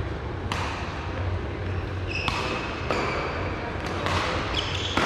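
Badminton rally: several sharp racket strikes on the shuttlecock, with short high squeaks of shoes on the court floor, over a steady low hum.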